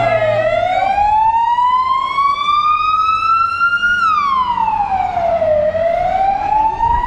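Red Cross ambulance siren wailing: each cycle glides slowly up in pitch for a few seconds, then drops more quickly. It falls about four seconds in and begins rising again near the end.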